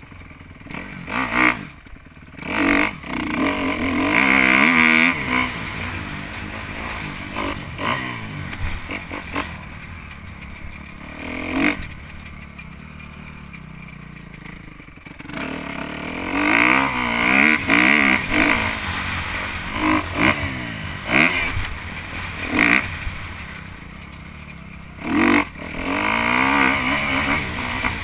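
Dirt bike engine revving hard and dropping back again and again, its pitch climbing with each burst of throttle and falling as the rider rolls off, with several loud surges.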